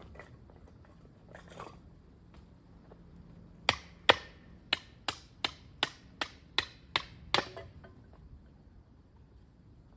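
Firewood being split with a quick run of about ten sharp wooden strikes, roughly three a second, the first two the loudest, stopping about three quarters of the way through. Low wind rumble underneath.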